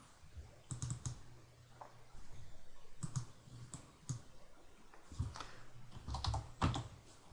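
Typing on a computer keyboard with mouse clicks: scattered single keystrokes, then a quicker run of keys as a password is typed near the end.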